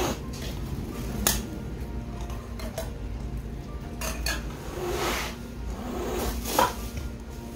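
A small tin of wet cat food being peeled open by its pull-tab, with sharp metallic clicks and clinks, and a plastic food bowl being handled. The sharpest clicks come about a second in and near the end.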